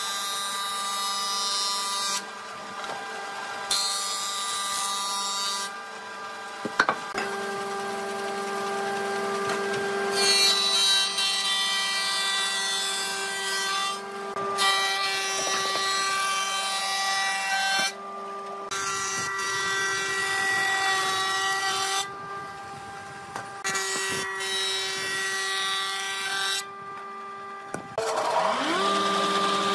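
Green combination woodworking machine (jointer, thickness planer and table saw in one) running with a steady motor hum and whine, with a board being planed across its jointer cutterhead. Near the end the motor spins up with a rising whine.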